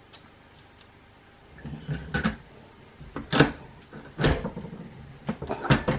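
A Vevor button press and its metal badge parts being worked by hand: sharp clicks and clunks, several of them a second or so apart, after a quiet first second and a half.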